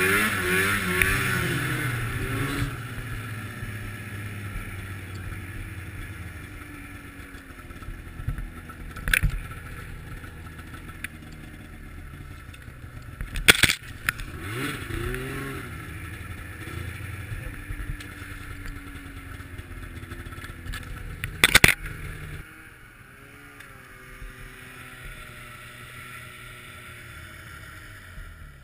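Arctic Cat snowmobile engine running under way, its pitch rising and falling with the throttle, with three sharp knocks along the ride. It settles quieter and steadier for the last few seconds.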